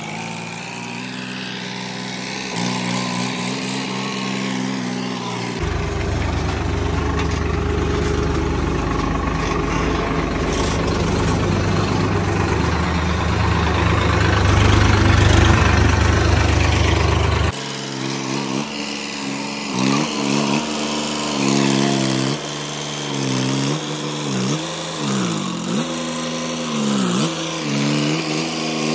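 Diesel farm tractor engine running close by under load. In the last ten seconds its speed rises and falls over and over as it is driven and manoeuvred.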